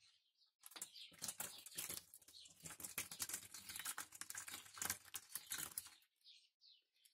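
Diced young coconut flesh and liquid poured from a plastic jug into a stainless steel tray: a dense run of soft, irregular pattering clicks and splashes that begins about a second in and stops about six seconds in.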